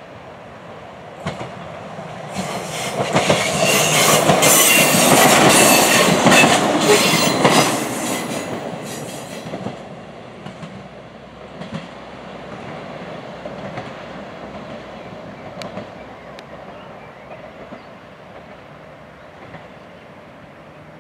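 SA134 diesel railbus passing close by: its running noise builds over a couple of seconds, is loudest for about five seconds with a rapid clicking of wheels over the rail joints and a hiss from the wheels, then dies away to a low rumble as it runs on.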